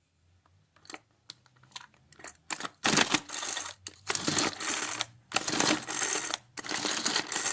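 Pigeon Handy Mini Chopper, a pull-cord manual chopper, pulled again and again to chop onion with its three blades. A few light clicks come first, then from about two and a half seconds in four long noisy pulls, each just under a second, with short gaps between them.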